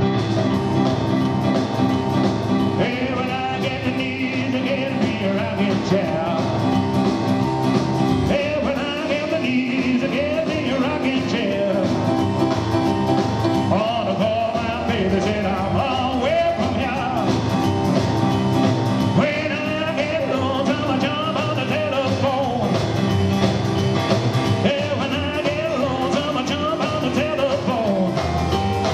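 Live rock 'n' roll band playing: piano from an electric stage keyboard, upright double bass and drums, with a man singing over it.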